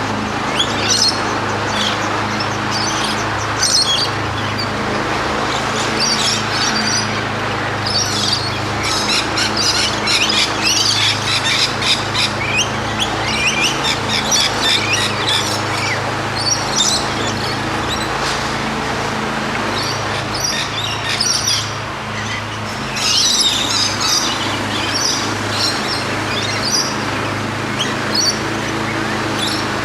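Wild birds chirping and calling outdoors: many short, high chirps in clusters, busiest about a third of the way through and again near the three-quarter mark, over a steady background hiss and a low hum.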